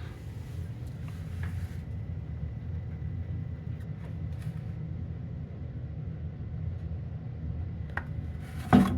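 Steady low rumble of water rushing through the house supply pipe and the newly fitted filter after the main valve is opened, with a few faint ticks.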